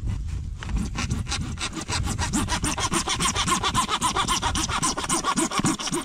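Hand saw cutting through a PVC water pipe in fast, even back-and-forth strokes, starting just under a second in.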